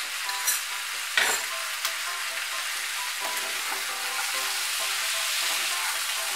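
Pumpkin, potato, pointed gourd and chickpeas sizzling in an oiled frying pan while a spatula stirs and turns them. A few clicks and one louder knock come in the first second or two, and the sizzle grows a little louder in the second half.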